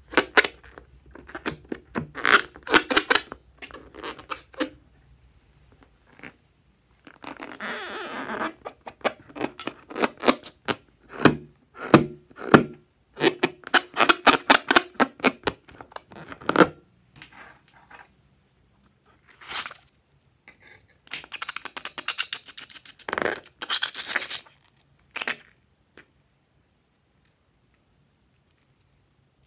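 Hands rubbing and squeezing liquid-filled latex balloons: rubbery squeaks and scraping in spells of a second or two, with pauses between, falling quiet near the end.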